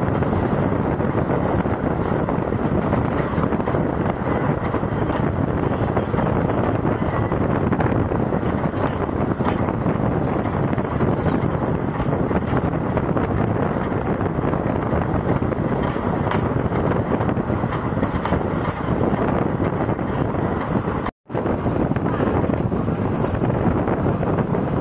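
Moving passenger express train running at speed, heard from on board: a steady rush of wheel and rail noise mixed with wind buffeting the microphone. The sound breaks off for an instant near the end.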